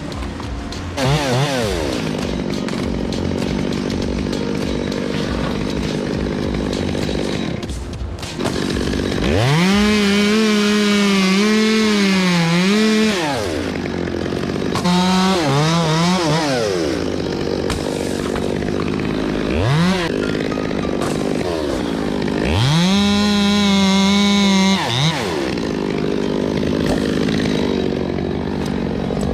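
Two-stroke chainsaw cutting: the engine is throttled up to a high, steady pitch for about three seconds twice, with shorter revs in between, dropping back each time to a lower running note.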